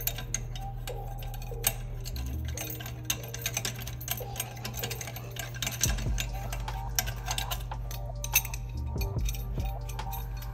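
Light, irregular clicks and taps of hand tools and metal turbo parts being handled, over a steady low hum.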